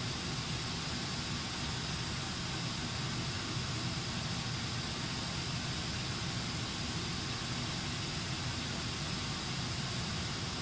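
Pink noise test signal played through a Bose SoundLink Mini II Bluetooth speaker: a steady, unbroken hiss.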